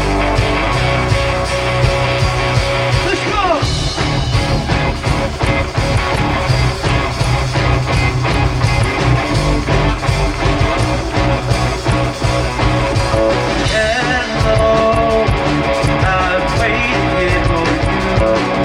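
Live rock band playing amplified, with electric guitar, bass and drums keeping a steady beat; the guitar slides between notes a few seconds in and again about two-thirds of the way through.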